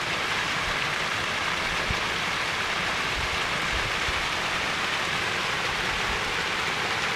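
Small waterfall with water spilling steadily over rocks in a continuous, even rush.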